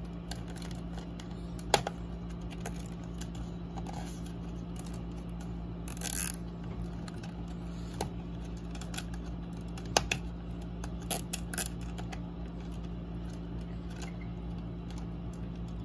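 Plastic cable ties being threaded and pulled through a desk lamp's plastic cover and grille: scattered sharp clicks and brief scrapes of plastic, over a steady low hum.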